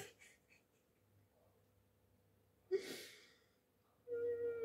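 A woman's breathy sigh about three seconds in, in an otherwise quiet pause, followed near the end by a brief steady hum-like tone.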